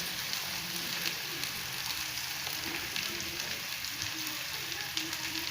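Oil sizzling steadily in a pan as freshly added chopped okra fries with sautéed onions, a continuous crackle with small faint ticks.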